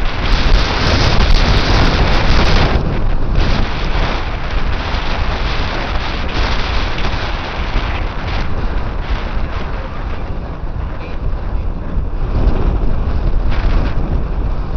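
Wind buffeting the camera microphone: a loud, steady rumble and rush, strongest in the first few seconds.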